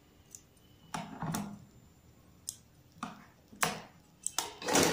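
Large scissors snipping the threads that join a chain of machine-stitched fabric triangles, cutting them apart: a series of short snips at uneven intervals.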